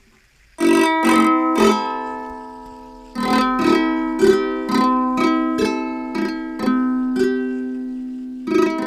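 Ukulele strings strummed by a spinning fidget spinner held against them, giving the same ringing chord over and over. A quick flurry of strikes comes about half a second in, then after a pause a steadier run of strikes about twice a second, each left to ring between touches.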